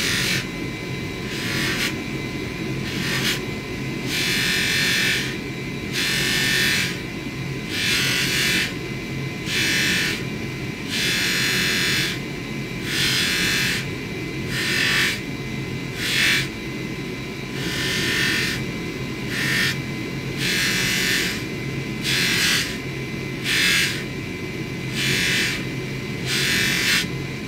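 Polishing motor running with a steady hum while a small metal ring is pressed again and again against its spinning buffing wheel, a short hissing rub each time, about once a second.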